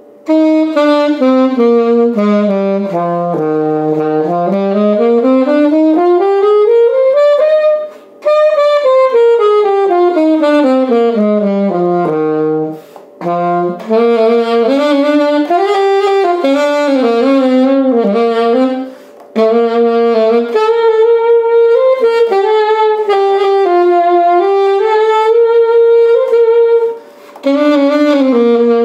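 Selmer Bundy II alto saxophone with a Dukoff B6 metal mouthpiece, played solo. It runs a stepwise scale down to the bottom of its range, up and back down again, then plays a melodic passage, with short breaths between phrases.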